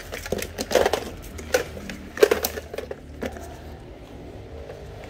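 Plastic cordless-tool battery chargers being handled and knocked against each other: a run of clacks and knocks over the first three seconds, the loudest about two seconds in, then only a low steady hum.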